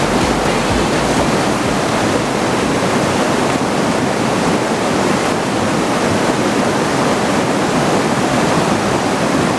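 Rushing water of a mountain valley stream or waterfall, a loud, steady roar.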